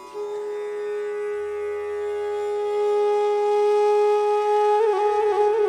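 Background music: a wind instrument holds one long steady note over a faint drone, then about five seconds in breaks into a wavering, ornamented line.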